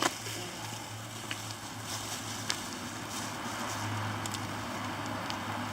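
Steady rain falling, an even hiss with a few sharp ticks and clicks scattered through it.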